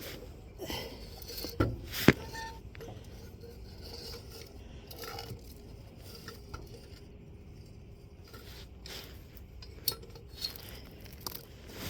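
Light metallic clinks, clicks and scrapes of the old deck engagement cable on a Craftsman YT4000 lawn tractor being worked free of its fittings by hand, with a sharper click about two seconds in.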